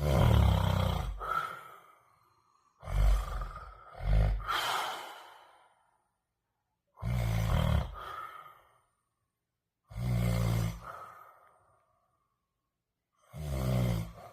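A man snoring loudly and deeply, five long rattling snores about three seconds apart, the second broken in two, each trailing off into a thin whistling tone.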